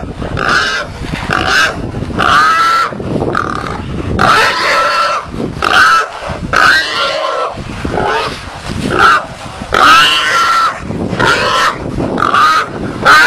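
Wild boar squealing over and over, about one loud cry a second, each cry rising then falling in pitch.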